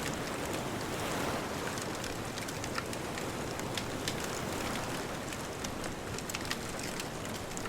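Wood bonfire crackling with frequent sharp pops and snaps, over the steady rush of distant ocean waves.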